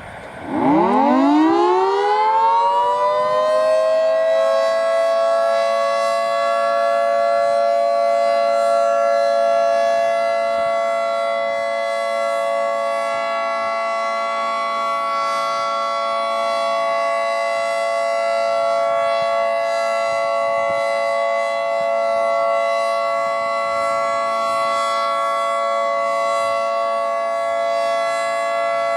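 Federal Signal 2T22B dual-tone warning siren winding up: its pitch rises quickly over the first few seconds, then it holds a steady two-note chord, the steady alert signal of a weekly siren test.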